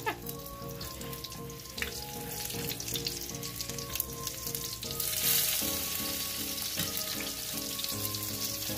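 Vegetable fritters frying in oil in a cast iron skillet: a steady sizzle that grows louder about five seconds in, as they are turned with a spatula, with light scrapes of the spatula on the pan.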